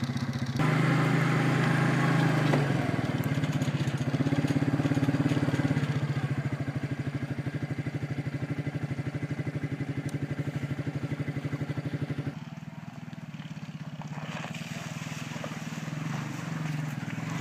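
ATV engine running steadily, turning a little quieter about twelve seconds in.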